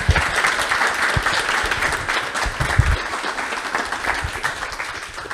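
Audience applauding, a dense patter of many hands that thins out near the end.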